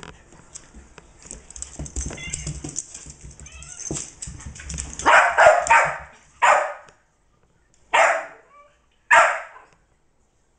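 A young min pin/jack russell cross puppy play-fighting with a cat: scuffling and paws on the rug and wood floor, then the puppy barking, a loud run of yaps about five seconds in followed by three single sharp barks about a second and a half apart.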